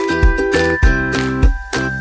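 Background music with a steady beat and bright, tinkling melody notes.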